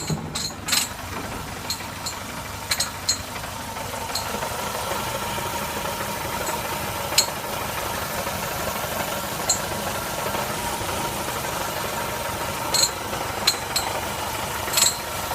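BMW E21's engine running, with sharp ticks at irregular intervals over the hum. About four seconds in, the engine note rises a little and then holds steady.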